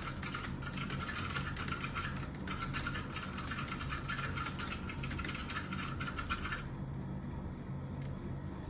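Fast typing on a computer keyboard: a rapid, continuous clatter of keystrokes with two brief breaks, stopping about two-thirds of the way through. A low steady hum runs underneath.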